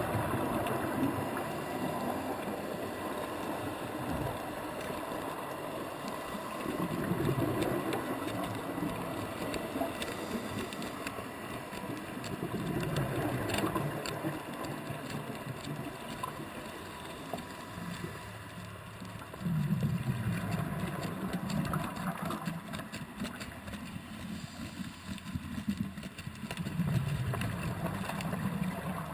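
Muffled underwater sound through a diving camera housing: scuba exhaust bubbles rumble in surges every six or seven seconds, with scattered sharp clicks from a coconut knocked against the rock.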